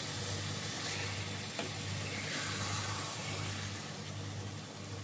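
Egg omelette curry sizzling in a kadai on a low flame, a steady hiss. Under it runs a steady low hum, and there is one faint click about one and a half seconds in.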